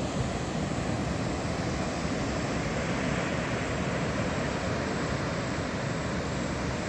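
Steady rushing roar of water pouring from a dam spillway into the gorge, even and unbroken.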